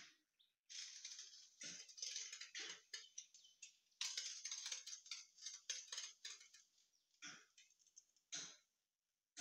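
Craft knife drawn along a ruler through corrugated cardboard, making repeated scratchy cutting strokes, with two short strokes near the end.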